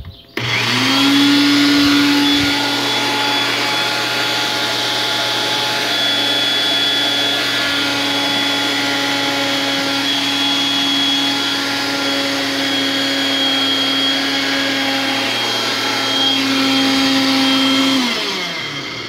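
Electric blender motor base running empty, with no jar fitted. It is switched on with its rotary knob, spins up within the first second, runs with a steady motor whine, and winds down with falling pitch near the end when it is switched off.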